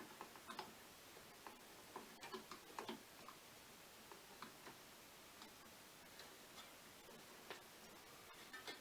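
Faint, irregular small clicks and taps of a screwdriver and Phillips screw against a CPU cooler's mounting bracket as the screw is lined up, over a near-silent background.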